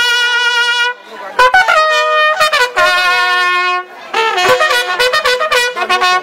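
A loud horn-like brass wind instrument blown in three phrases of held and short notes at several pitches, some notes bending, with brief breaks about one second and four seconds in.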